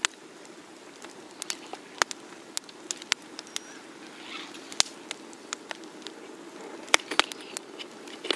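Wood campfire of dry branches crackling, with irregular sharp snaps and pops; the loudest snaps come about five and seven seconds in.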